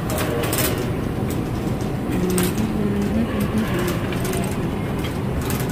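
Shopping cart rolling over a store floor: a steady low rumble with clicks and rattles from the wire basket.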